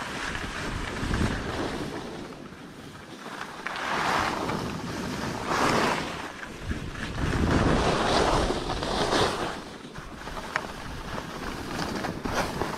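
Skis scraping over packed, chopped-up snow, swelling and fading every couple of seconds, with wind on the camera microphone.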